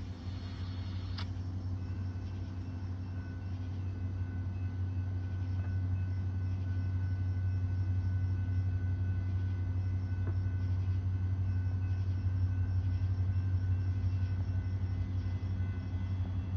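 Steady low engine rumble that slowly grows louder over the first several seconds, with a few faint steady high tones above it.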